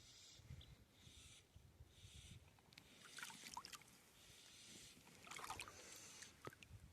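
Faint water in a brook, quiet sloshing and trickling, coming and going about once a second.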